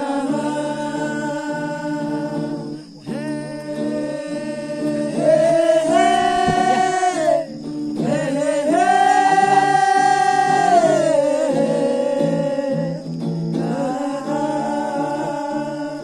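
Background music: a Nepali song in which a voice holds long sung notes, gliding between pitches, over a steady sustained backing.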